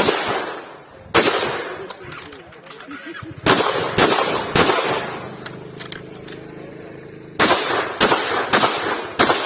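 Shotgun shots fired in strings, each a sharp report with a ringing tail: one at the start, another about a second later, three in quick succession in the middle, then a pause and four more near the end.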